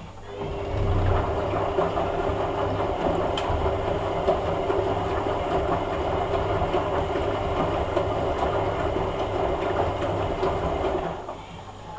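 Hoover A3786 Logic Deluxe washing machine running for about ten seconds, a steady hum with a rushing water-like noise over it, starting shortly after the beginning and cutting off near the end.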